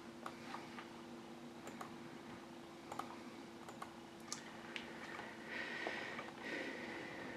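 Faint, scattered clicks of a computer keyboard and mouse being used to navigate a web page, over a steady low hum. Two brief rustling noises come near the end.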